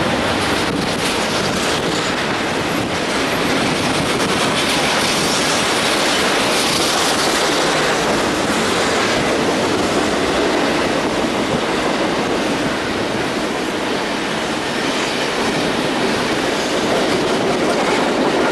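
Double-stack intermodal freight train passing, with the steady noise of its container well cars' wheels rolling on the rails the whole time.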